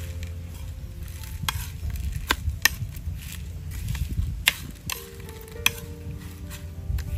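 Metal spoon stirring fried garlic and fried green peppers on a ceramic plate: a dry rustle of crisp garlic bits, with several sharp clinks as the spoon strikes the plate.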